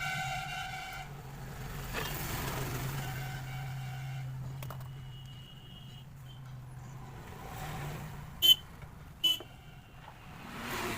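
Street traffic: a vehicle horn toots for about a second at the start over a steady engine rumble. Two sharp clicks come near the end, the loudest sounds, less than a second apart.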